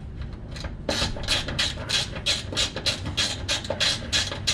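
Small ratchet wrench clicking in quick, even strokes, about four or five a second from about a second in, as it runs down the nuts holding a new fuel sender onto the fuel tank.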